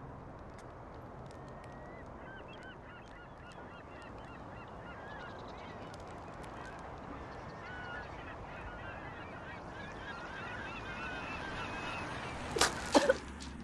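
A flock of geese honking, many short repeated calls over a steady outdoor background noise. Near the end come two or three sharp, loud knocks.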